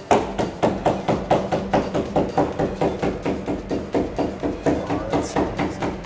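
Kitchen knife chopping rapidly on a wooden cutting board, a steady run of sharp strokes about four a second.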